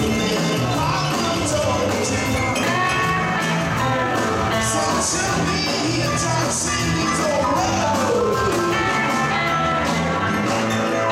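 Live rock band playing a blues-rock number: electric guitars over drums and cymbals. Guitar notes slide downward twice, briefly about a second in and more slowly from about six and a half seconds.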